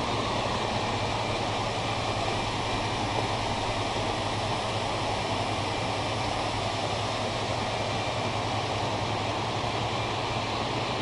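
Floodwater rushing steadily, with a low steady hum underneath.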